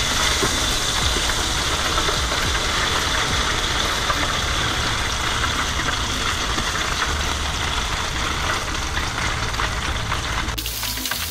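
Piping-hot oil sizzling and crackling as it is poured over raw black drum fillets in a foil pan, flash-frying the fish. The sizzle is steady and cuts off suddenly near the end.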